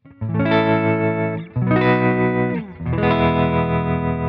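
Electric guitar playing three chords through an amplifier with a JAM Pedals Harmonious Monk tremolo pedal switched on, the volume pulsing quickly and evenly in a natural-sounding tremolo. The last chord rings on.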